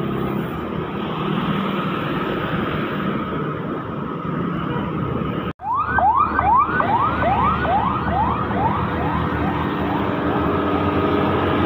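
Road traffic of trucks and motorbikes passing. After a cut about halfway, an emergency vehicle's siren yelps in fast repeated rising whoops, about two to three a second, fading away as it moves off, over the running truck engines.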